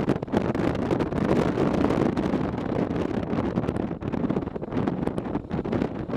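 Suzuki V-Strom motorcycle being ridden over a rough, slippery dirt track: wind buffeting the microphone over the riding noise, with frequent short knocks and rattles.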